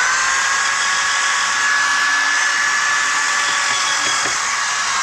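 Power drill fitted with a sanding disc attachment, running at a steady high speed with a steady whine while sanding wood.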